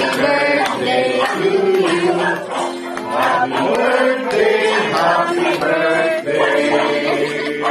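A group of voices singing a song with instrumental accompaniment.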